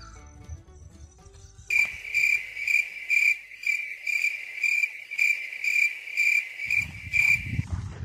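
Cricket chirping in a steady, even rhythm of about two to three high-pitched pulses a second, starting about two seconds in and stopping just before the end, where a low rumble comes in.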